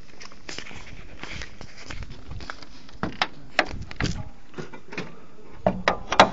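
Footsteps and handling noise from a phone camera being carried, with scattered clicks and knocks that grow busier about halfway through and are loudest in a quick cluster near the end.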